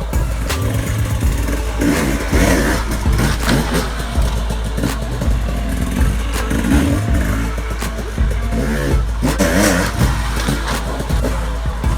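Two-stroke enduro dirt bike engine being ridden hard, its revs rising and falling over and over as the throttle is worked.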